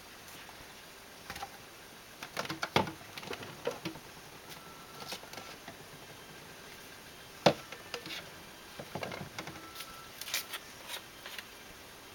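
Plastic paint bottles and jars clicking and knocking as they are handled, uncapped and set down on a wooden counter, in scattered clusters with one sharper knock about seven and a half seconds in.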